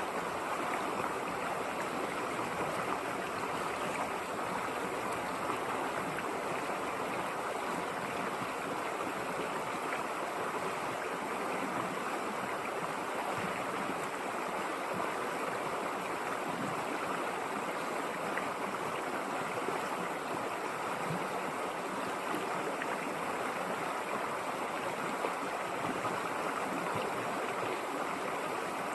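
River water flowing, a steady rush and gurgle that holds even and unchanging throughout.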